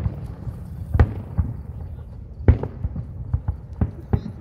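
Aerial fireworks bursting: a string of sharp bangs, the loudest at the start, about a second in and about two and a half seconds in, with smaller pops between them.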